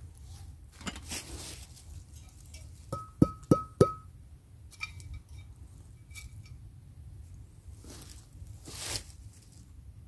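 Enamelware coffee pot and mug clinking: four quick metal clinks with a ringing tone about three seconds in, then a few lighter clinks a second or two later. A short rustle comes near the end.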